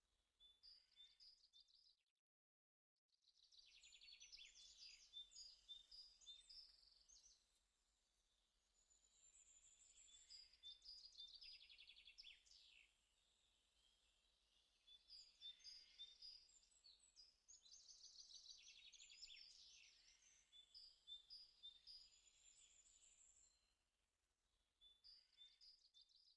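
Faint birdsong: repeated high chirps and quick trills from several birds, coming and going in phrases, with a sudden drop to silence twice.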